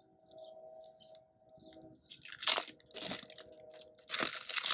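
Crinkly plastic wrapping of a 5 Surprise Mini Brands capsule being torn and crumpled in the hands: sporadic crackling, starting about halfway in and loudest near the end, over a faint steady hum.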